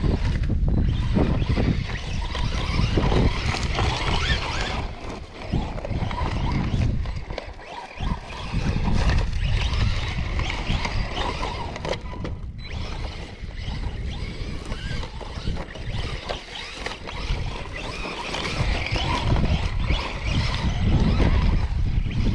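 Arrma Senton 3S brushless electric RC short-course truck driving hard on sand, its motor and spinning tyres rising and falling in loudness with the throttle, over a heavy low rumble.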